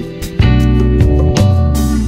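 Instrumental background music with guitar.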